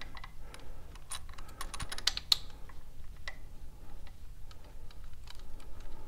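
Irregular light clicks and taps of metal parts and hand tools being handled while an oil pump and its Allen bolts are worked into place on a motorcycle engine. The sharpest clicks come about two seconds in.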